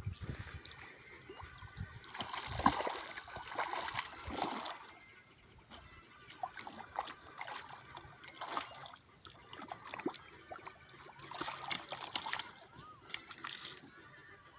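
Water splashing and sloshing in irregular bursts, loudest about two to four seconds in and again near the end.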